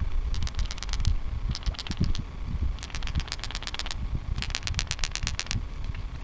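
A frog calling in rapid trains of sharp clicks, about a dozen a second, four bursts each lasting roughly a second, with a low rumble of wind or handling noise underneath.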